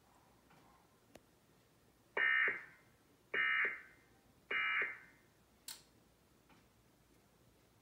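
Emergency Alert System end-of-message signal from a Trilithic EASyPLUS encoder: three short bursts of SAME digital data tones about a second apart, marking the end of the alert. A single sharp click follows near the end.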